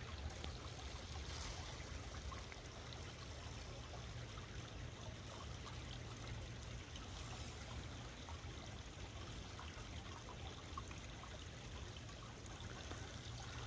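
Shallow rocky creek water trickling, faint and steady.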